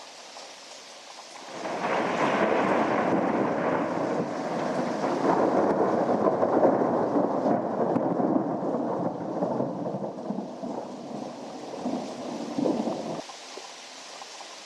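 A long rumble of thunder starts about a second and a half in and goes on for about eleven seconds before stopping abruptly, over a steady hiss of rain.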